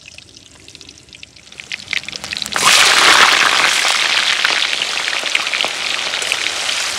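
Pieces of green banana frying in hot oil in a wok. A faint crackle of oil for the first couple of seconds, then a sudden loud sizzle about two and a half seconds in as the banana goes into the oil, settling to a steady crackling fry.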